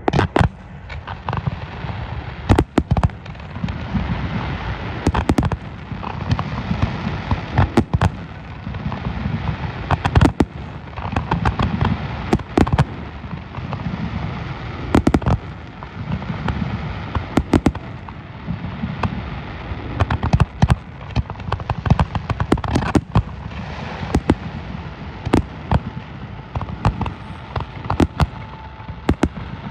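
Fireworks display: a steady run of shell bursts and sharp cracks over a continuous rumble of booms, with the loudest bangs every second or two.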